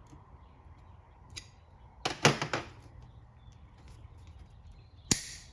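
Sharp metallic clicks and snaps as the cage of a differential carrier bearing is cut through: a quick cluster of several clicks about two seconds in, then one sharp snap near the end.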